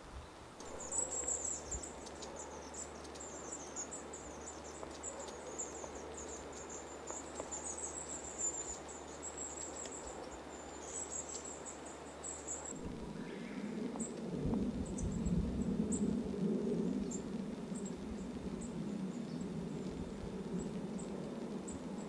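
Forest ambience: a thin, very high continuous chirring for about the first twelve seconds, over a faint low hum. Then it changes abruptly to a low rushing noise with scattered high ticks.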